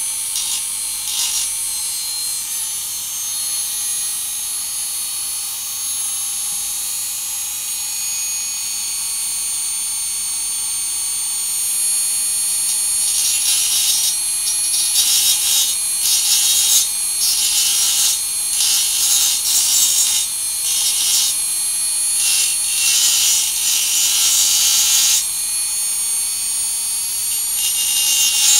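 Small Dremel-type rotary tool spinning a diamond cutting disc through a glass DRO linear scale: a steady high-pitched whine. The grinding grows louder and harsher from a little under halfway through, easing off before the end.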